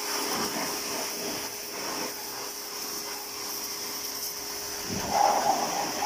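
Pressure washer jet spraying water onto a motorcycle's rear wheel: a steady hiss of spray over a steady hum, getting louder and splashier about five seconds in.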